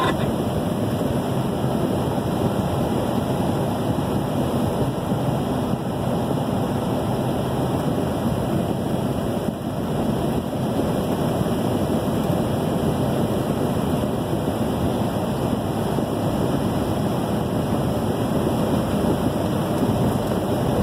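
Steady road and wind noise of a vehicle driving on a highway, heard from inside its cab.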